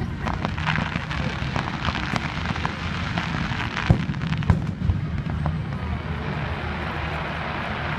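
Aerial fireworks bursting overhead: a fast run of pops and bangs with crackle, the loudest bang about four seconds in.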